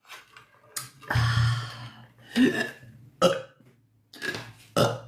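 A woman burping: one long, low burp about a second in, the loudest sound, followed by several shorter bursts.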